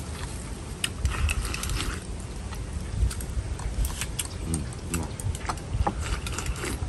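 Scattered clicks and taps of chopsticks on bowls and plates, with chewing of crisp-fried Bombay duck fish.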